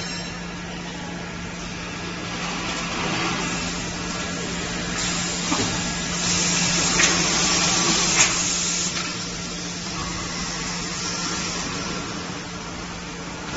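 Short-cycle melamine laminating hot press line running: a steady machine hum under a hiss that swells between about five and nine seconds in, with a few sharp clicks in that stretch.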